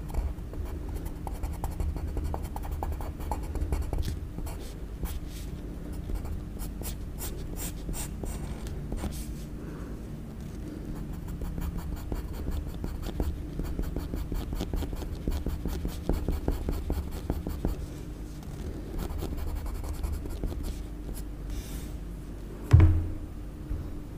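Pencil scratching across paper in quick, short sketching strokes, over a low steady hum, with one dull thump on the table near the end.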